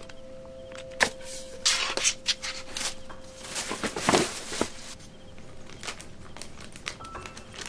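Rustling and light knocks from unpacking flat-pack furniture: a plastic bag of wooden dowels and metal screws being handled, and a bamboo panel being lifted out of its cardboard box with a scraping rustle about four seconds in. A held music note lingers and fades during the first half.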